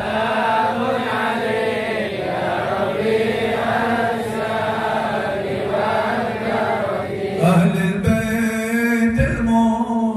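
A man's voice chanting a melodic devotional chant into a microphone, in long drawn-out phrases, with more voices or a fuller sound joining about seven and a half seconds in.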